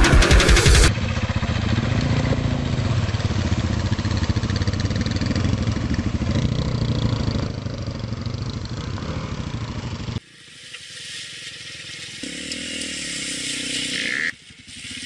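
Off-road motorcycle engines running under load as the bikes ride through muddy floodwater, with water splashing. The sound changes abruptly twice, about ten seconds in and near the end, where one riding clip gives way to the next.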